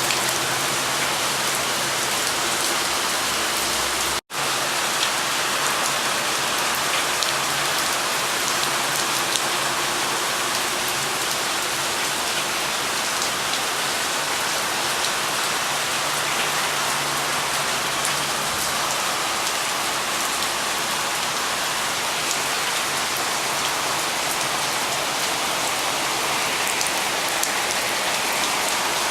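Steady rain falling, a dense even hiss flecked with the ticks of individual drops; the sound drops out for an instant about four seconds in.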